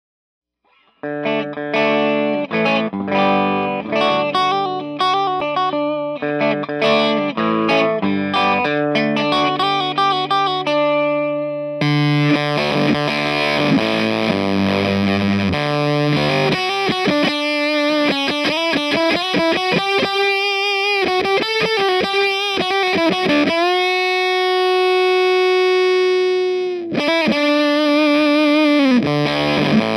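Electric guitar played with a cleaner tone for about the first eleven seconds, then through an EarthQuaker Devices Terminal fuzz pedal, a take on late-60s Japanese fuzz: heavily distorted notes with bends and vibrato, a long sustained note near the end, then chords again.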